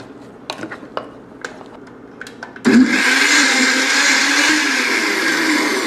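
A few light clicks and knocks as the blender jar and lid are fitted. About two and a half seconds in, a countertop blender starts and runs steadily, puréeing fruit and juice into a smoothie.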